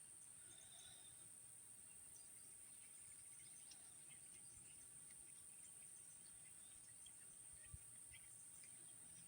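Near silence: faint room tone with a steady high hiss and scattered faint ticks, and one soft low bump near the end.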